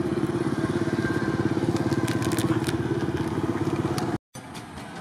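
An engine running steadily with a fast, even pulse, cutting off suddenly about four seconds in, leaving quieter background noise.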